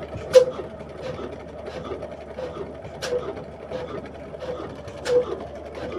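Old 12 hp diesel engine running slowly, its beats coming evenly at about three every two seconds over a steady low hum.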